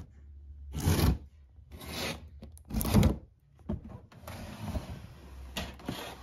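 Cardboard box being opened: three scraping, sliding rustles of cardboard about a second apart, then a few light taps and knocks as the flaps are folded back.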